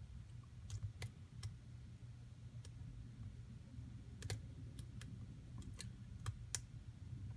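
Faint, irregular small metallic clicks of a lock pick working the pin stack of a Den Brass padlock under a tension wrench, over a steady low hum. The pins give really crunchy feedback, which the picker takes for threaded pins throughout the lock.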